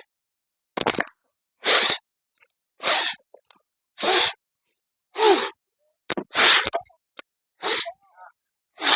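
A person blowing their nose hard, about eight forceful blasts of air roughly a second apart.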